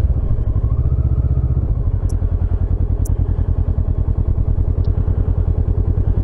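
Kawasaki motorcycle engine running steadily with an even pulsing beat, with a couple of faint clicks.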